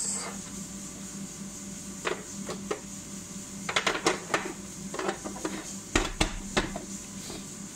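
Plastic clicks and knocks from a plastic vegetable slicer as its blade insert and lid are fitted onto its container: a scatter of sharp taps, bunched about four seconds in and loudest about six seconds in, over a steady low hum.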